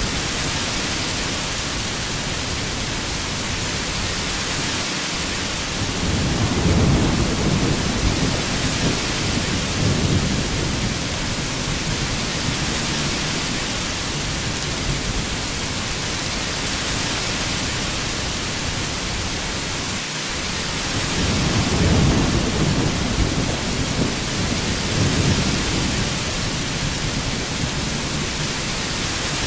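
Heavy rain falling steadily, with two low rolls of thunder rumbling for several seconds each, about six seconds in and again about twenty-one seconds in.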